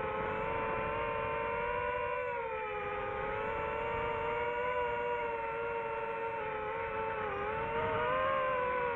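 DJI FPV drone's motors and propellers whining in flight, heard through the onboard camera's microphone. The pitch wavers, dipping briefly about two and a half seconds in and again about seven seconds in.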